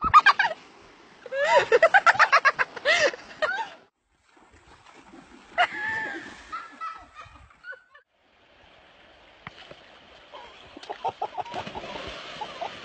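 Shrill cries and shrieks in quick succession, then water splashing and rushing with a few more cries in the last few seconds.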